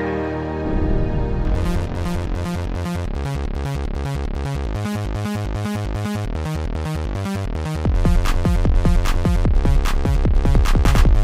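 Electronic techno music: a bass beat comes in within the first second and a fast hi-hat-like rhythm joins shortly after, and the track grows louder and fuller about eight seconds in.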